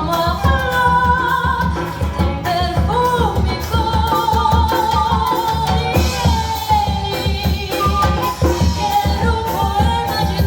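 Samba played by a small band: singing with flute, guitar and percussion over a steady, dense beat.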